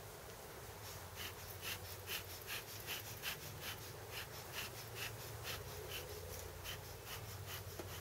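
Bee smoker's bellows pumped in a quick, even rhythm, puffing air and smoke about two to three times a second.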